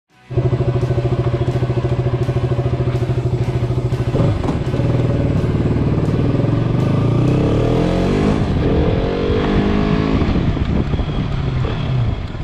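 Motorcycle engine idling with an even pulsing beat. About four seconds in it pulls away, and the pitch rises and falls repeatedly as it revs through the gears and accelerates.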